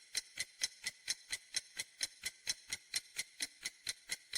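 Steady clock-like ticking of a quiz countdown-timer sound effect, about four to five ticks a second.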